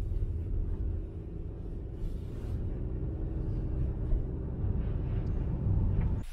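Steady low rumble of a Honda car driving on a road, heard from inside the cabin.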